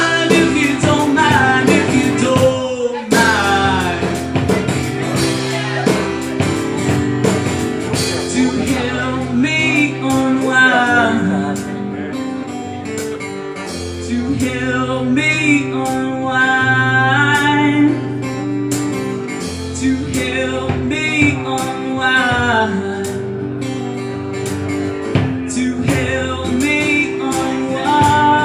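Live acoustic guitar strumming with wordless singing over it, kept in time by the beats of a foot-operated drum.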